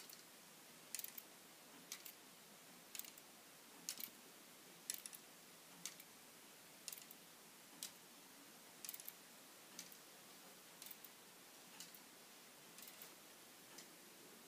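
The plastic K'Nex escapement of a home-built grandfather clock ticking about once a second, many ticks heard as a quick double click.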